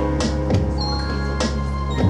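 Music with a sustained low bass note and sharp drum hits roughly once a second, with brief high ringing notes in between.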